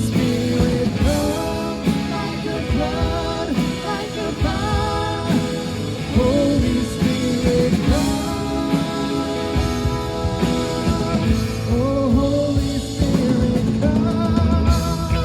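Live worship band playing a rock-styled song with drum kit and electric guitar, with a sung melody over it.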